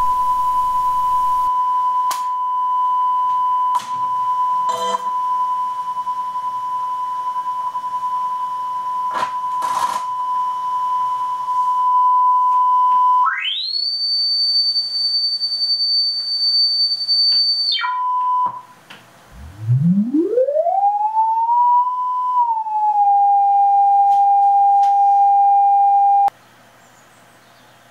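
Test tones played through an Akai GX-625 reel-to-reel tape recorder on its first test run after its preamp transistors were replaced. A steady mid-pitched tone runs for about thirteen seconds, then switches to a high whistle-like tone for about four seconds. After a short break a tone glides up from very low, settles, and cuts off suddenly near the end. Light tape hiss lies underneath, because the machine isn't biased for that tape.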